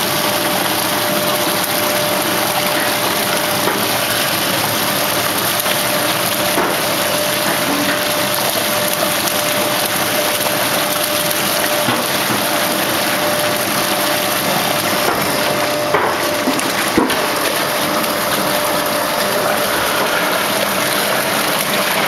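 Plaster panel making machinery running: a loud, even rushing noise with a faint steady hum that fades out about fifteen seconds in, and a few short knocks around sixteen and seventeen seconds in.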